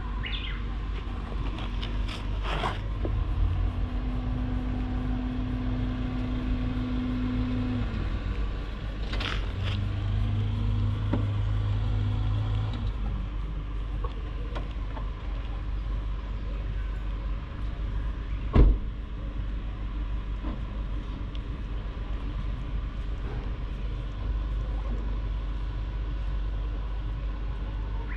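A steady low rumble, with a low hum that comes in for a few seconds twice in the first half, and a few sharp clicks, the loudest about two-thirds of the way through.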